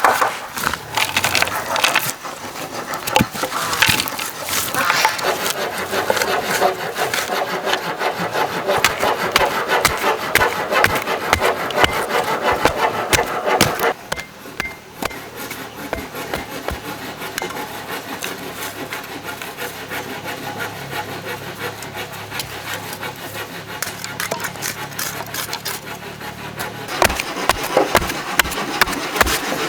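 Bamboo being worked with a hand tool: continuous rasping, scraping strokes that ease off about halfway through, with sharper knocks near the end.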